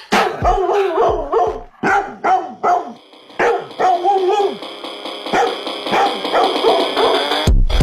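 Dog barking in quick short barks and yips over a music track. The heavy bass beat drops out for most of the stretch and comes back near the end.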